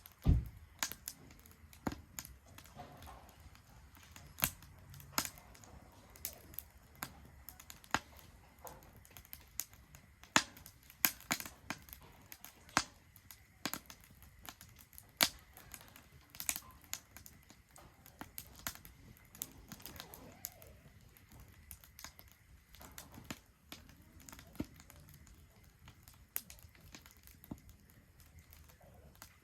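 Wood fire crackling in a Solo Stove Ranger fire pit, with irregular sharp pops and snaps.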